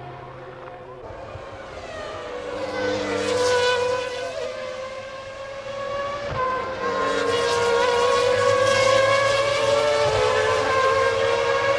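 1996 Formula One racing car engines at high revs, a high-pitched note climbing in pitch with breaks at the gear changes and growing louder.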